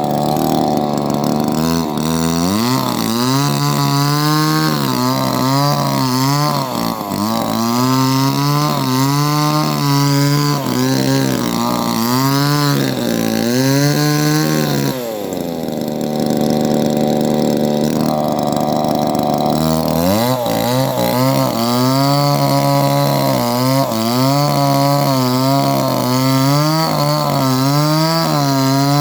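Chainsaw cutting wood, its engine pitch dipping and recovering about once a second as the chain bites. The engine runs steadily for a few seconds past the middle, then resumes cutting.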